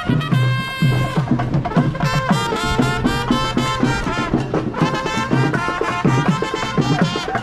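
Brass band music: trumpets playing a lively tune over steady drumming.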